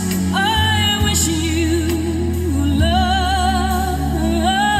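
A song with vocals played through the van's upgraded car audio system: a singer holds long notes with a wavering vibrato over steady deep bass, a new phrase starting about three seconds in.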